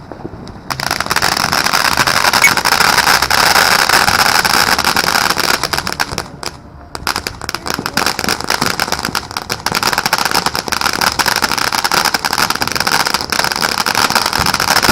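Ground firework fountain burning: a loud, steady hiss thick with fine crackling starts about a second in, drops away briefly around the middle, then carries on.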